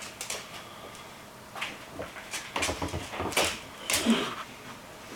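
A Scottish terrier puppy nosing and pushing a hard rubber chew toy across a wooden floor: a run of irregular knocks and scrapes as the toy bumps and slides.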